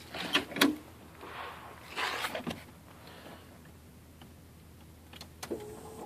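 Scattered clicks and knocks, then near the end a short steady hum as the 1992 Jeep Cherokee XJ's electric fuel pump primes at key-on, the pump running again with the old MAP sensor reconnected.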